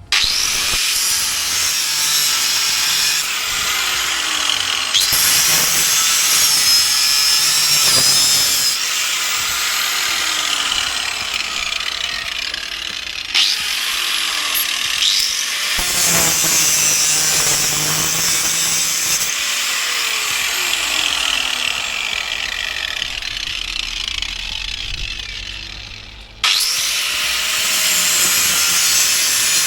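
Angle grinder cutting into steel, grinding off a rounded, rusted bolt on a car's rear wheel hub. It runs loud and continuous, eases off briefly a couple of times, winds down near the end, then starts straight up again.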